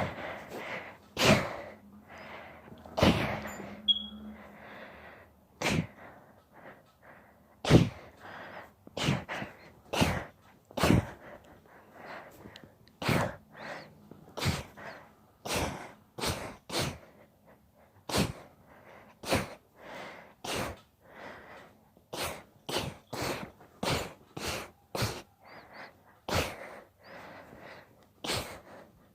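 A girl's sneezing fit: a long run of short, sharp sneezes coming one or two a second, with the loudest at the very start.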